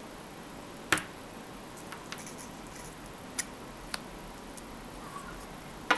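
A few small sharp clicks and taps as tiny plastic webcam lens parts and a hobby knife are handled and set down on a tabletop. The loudest click comes about a second in, quieter ones follow, and one more near the end, over faint room hiss.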